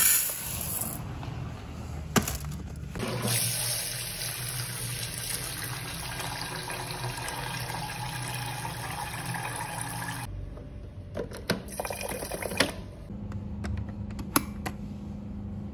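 Dry rice poured into a rice cooker's inner pot with a brief rattle, then tap water running steadily into the pot over the rice for about seven seconds, to wash it. After the water stops come a few sharp clicks and knocks as the pot is set into the rice cooker and its cook switch is pressed.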